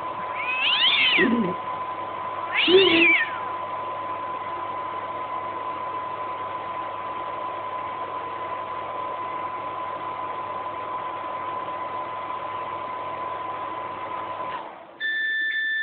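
Microwave oven running with a steady hum, with a kitten meowing twice in the first few seconds. The hum cuts off near the end, and a steady beep sounds right after.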